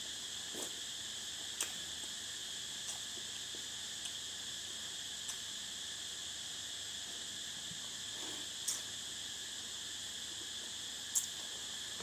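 Cicadas droning in a steady, unbroken high-pitched chorus, with a few short sharp clicks scattered through, the clearest about a second and a half in, near nine seconds and near the end.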